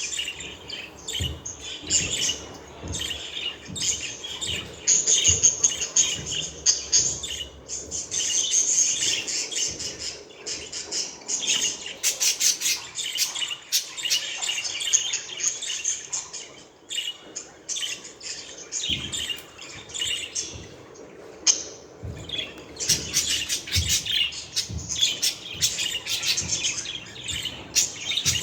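Budgerigars chirping and warbling continuously, with rapid twittering chatter and short squawks.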